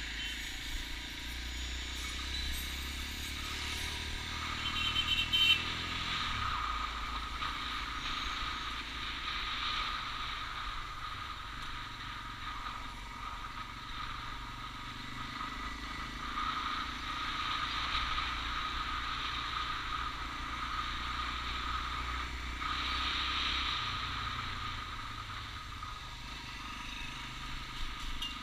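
Motorcycle engine running at low road speed, its pitch stepping up and down, with road and wind noise. A short, louder noise comes about five seconds in.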